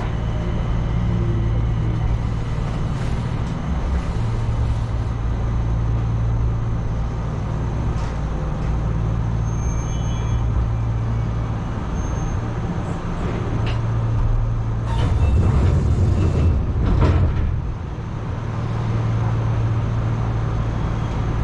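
Enshu Railway 2000-series electric train (set 2004F) heard from inside the car while running along the line: a steady low motor and running hum, with a few sharp wheel clicks over the rails and a louder stretch about two-thirds of the way through.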